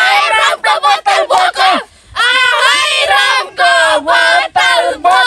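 A group of young women singing loudly together, their voices held and wavering, with a short break about two seconds in.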